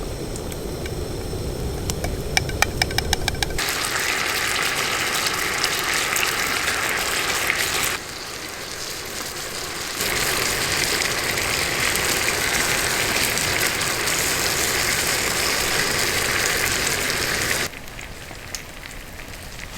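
Cooking on a portable gas camp stove: a steady hiss that starts suddenly about three and a half seconds in, after a quick run of clicks, and is cut off twice by edits.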